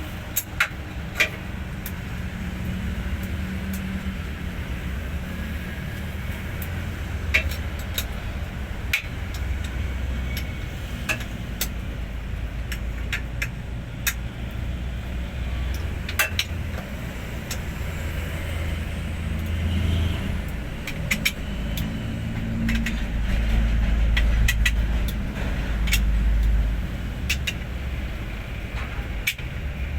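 Hino 500 truck's diesel engine running with a steady low rumble, which swells louder twice in the second half, with scattered sharp clicks throughout.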